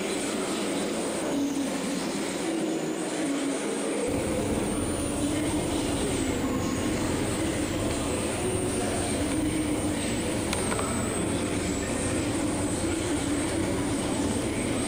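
Steady vehicle rumble and noise. A deep low rumble comes in suddenly about four seconds in.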